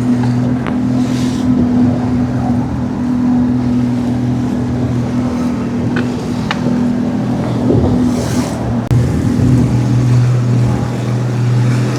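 Small fishing boat's motor running steadily at trolling speed, a low even hum, with wind and water noise over it.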